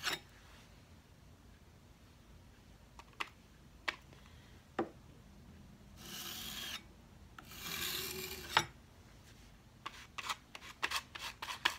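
Metal putty knife dragged flat across a painted wooden drawer front: two scraping swipes about a second apart. Scattered light clicks and taps come before them, and a quick run of taps near the end.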